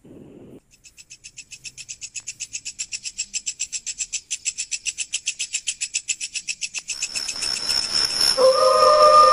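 Horror sound effect: a fast, high-pitched pulsing trill of about eight pulses a second that grows steadily louder, giving way near the end to a hiss and a sustained wailing tone.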